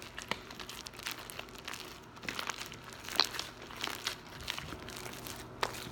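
Slime being squished and worked by hand, giving irregular small sticky pops and crackles.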